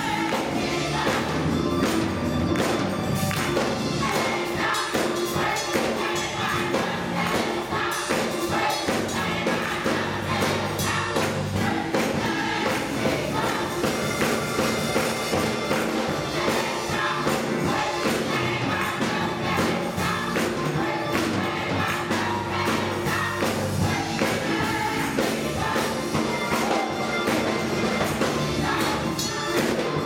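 Gospel choir singing with Yamaha Motif XF7 keyboard accompaniment, over a steady percussive beat.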